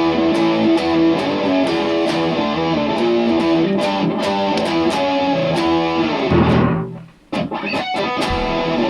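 Electric guitar with distortion playing a riff. The playing breaks off about six and a half seconds in, followed by a few short separate chords.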